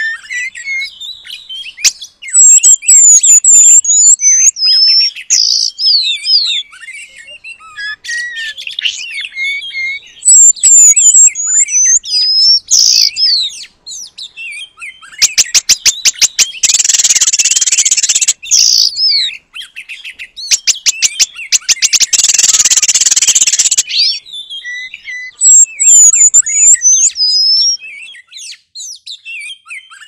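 Pin-tailed whydah song: rapid runs of high whistled notes and sharp chips, broken about halfway through and again a few seconds later by long, dense buzzy rattles.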